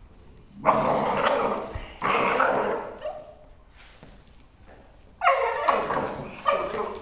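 Reactive dog barking at a stuffed dog in four loud outbursts, two in the first three seconds and two near the end.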